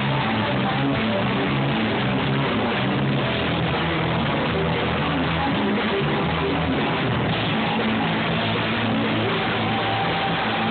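Live rock band playing: electric guitar and drum kit, loud and continuous.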